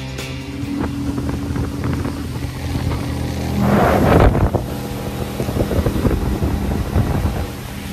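25 hp Mercury outboard motor running steadily as the boat cruises, with wind buffeting the microphone and a loud gust about four seconds in.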